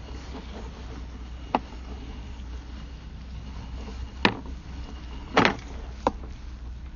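Sewer inspection camera's push cable being reeled back out of a drain line: a steady low hum with four sharp knocks spread across a few seconds, the second and third the loudest.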